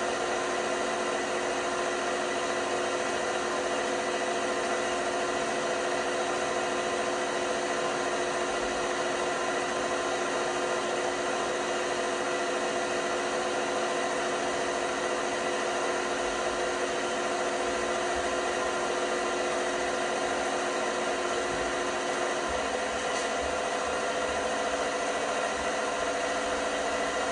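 LG washing machine running with a steady motor hum and several steady tones; one of the tones drops out about 22 seconds in.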